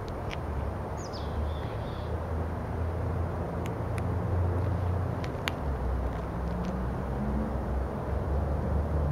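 Steady low rumble of a car's engine and tyres as it rolls slowly along a paved road. A bird gives one short falling chirp about a second in, and a few light clicks come near the middle.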